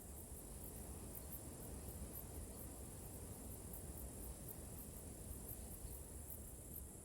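Faint steady high-pitched chirring of insects such as crickets, over a low rumble.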